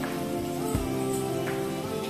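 Background music: held, even tones with a soft low beat.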